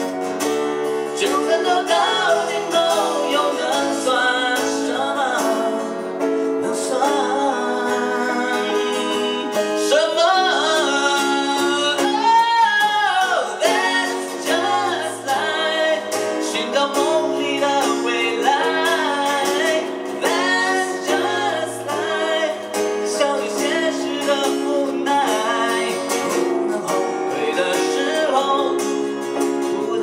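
Live pop ballad: a man and a woman singing together into microphones over instrumental accompaniment.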